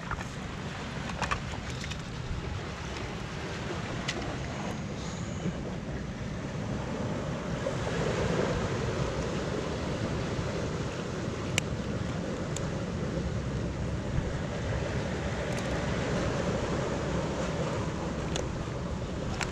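Steady wash of sea surf against a rocky shore, with wind on the microphone, swelling slightly about eight seconds in. A few sharp clicks stand out over it.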